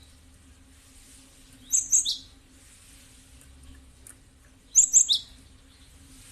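Cinereous tit (gelatik batu) calling: two short, loud bursts of three or four quick, sharp high notes, about three seconds apart. This is a lure call used to draw a response from other tits.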